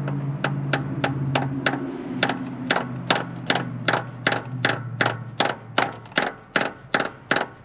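A hammer tapping steadily on a stuck intake valve in a 1950 Ford flathead V8, metal on metal at about three taps a second, growing harder after a couple of seconds. The taps are meant to knock the valve, stuck open after decades of sitting, back down onto its seat, and it does not budge.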